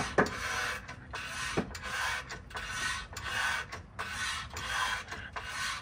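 Hydraulic floor jack being pumped with its long handle to raise the car, in repeated mechanical strokes about two a second.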